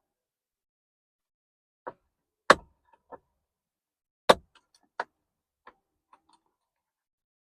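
Screwdriver clicking and knocking against the airbag release pins behind a C6 Corvette steering wheel: about seven separate sharp clicks, two of them loud, with silence between. It is the side whose pin can't be felt, which he takes for a broken clip.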